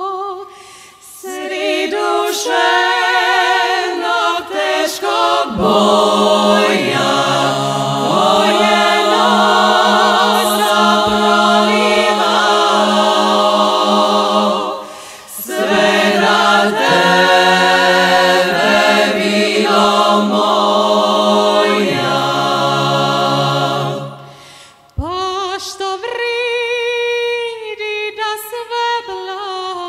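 Women's klapa singing a Dalmatian folk song a cappella in close harmony: a lead voice opens a phrase, the full group joins with low held notes in two long phrases, and near the end a solo voice carries on alone.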